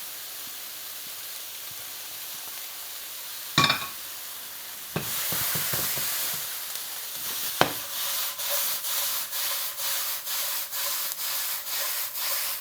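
Chicken and vegetables sizzling in a hot frying pan, with a ringing metal clank about a third of the way in. The sizzle grows louder after a knock at about five seconds as the food is tipped into the bigger pan. In the second half a utensil stirs and scrapes it in a steady rhythm of about two strokes a second.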